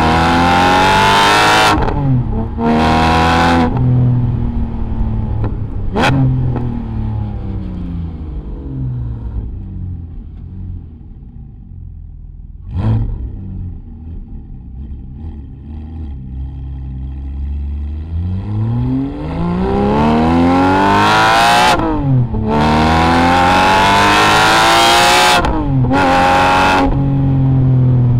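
Porsche 718 GT4's 4.0-litre flat-six through a Kline Innovation Inconel full exhaust with 200-cell catalytic converters, pulling hard with rising pitch and quick upshifts. In the middle it coasts down with falling pitch and gives one short throttle blip about halfway. It then pulls hard again through several more upshifts near the end.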